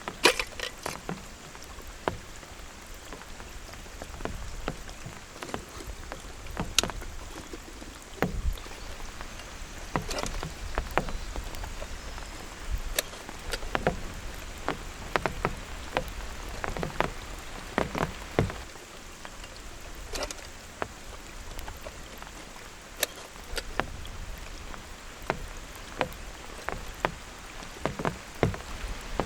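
Steady rain with heavy drops striking a surface in irregular, sharp taps.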